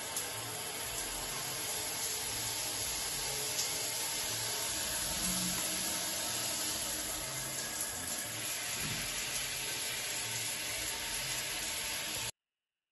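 Shower running in a small tiled shower: water spraying from the overhead rain head and splashing onto the tiles as a steady hiss, which stops abruptly near the end.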